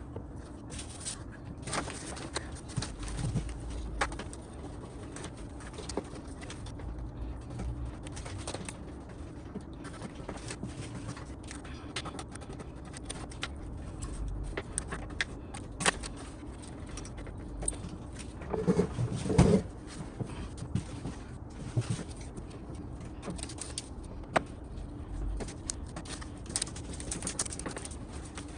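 Scattered light clicks and scrapes of hand work on a car door panel, over a low steady hum. A bird calls once near the middle, in a short two-part phrase.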